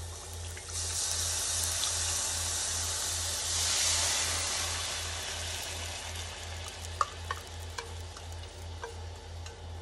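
Soy sauce, sugar and vinegar marinade sizzling as it is poured into a hot frying pan of sliced leeks. The hiss swells to its loudest a few seconds in, then dies down. A few sharp taps follow as the pan is stirred.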